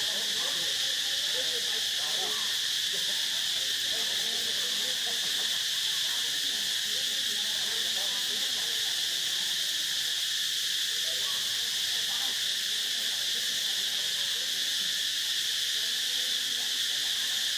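A dense chorus of insects droning steadily at a high pitch, without a break.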